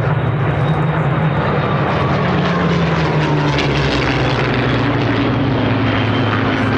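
Massed V12 piston engines of a formation of Spitfires and Hurricanes, mostly Rolls-Royce Merlins, droning together as the formation flies past. A steady, layered drone whose pitches shift slightly as different aircraft pass.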